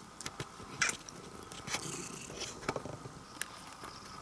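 A cat purring, with scattered rustles and light clicks as it moves, the sharpest click about a second in.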